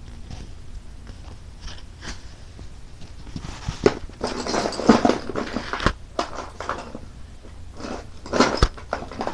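Crayon scribbling on paper: faint scratchy strokes at first, growing louder and busier from about three seconds in, with a few sharp knocks among them.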